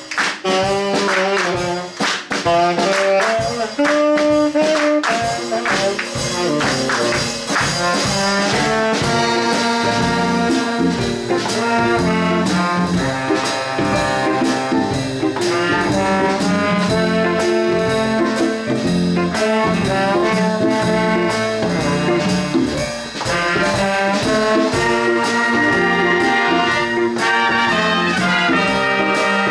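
Big band playing a full ensemble passage, with trumpets and trombones in front and saxophones underneath, over a steady beat.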